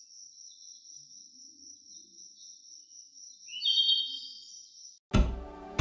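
Insects trilling in a steady, high, continuous tone, with a second, lower trill joining about three and a half seconds in. Music with a beat starts suddenly near the end.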